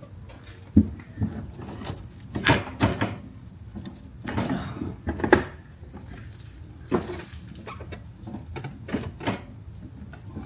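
Irregular knocks, clunks and scrapes as an old shift cable is yanked and worked loose through a Polaris RZR's frame, the cable housing banging against metal and plastic.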